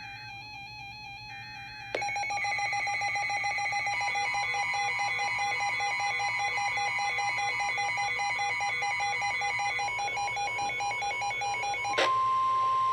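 Electronic emergency alert tones for a flash flood warning. A quieter repeating tone pattern gives way, about two seconds in, to a loud, rapidly pulsing alarm of several tones together. Near the end that is replaced by one steady alert tone with hiss behind it.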